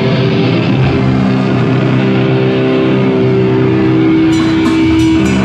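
Rock band playing live: electric guitar chords ringing on, with a few sharp hits near the end.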